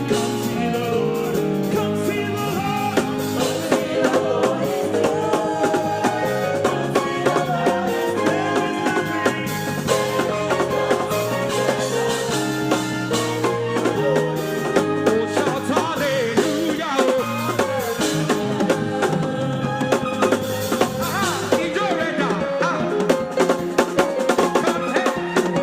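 Upbeat praise music with a drum kit keeping a steady beat of snare and rimshot hits, with singing over the band.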